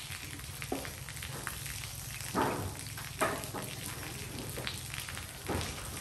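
A few short scrapes and knocks from workers cleaning and painting a corrugated metal roof, over a steady low background hum.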